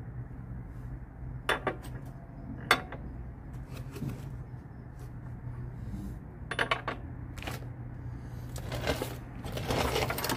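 Sparse metallic clicks and clinks of a wrench on bolts being turned tight during a radiator install, with a short cluster of clicks midway and a rustling scrape near the end, over a steady low hum.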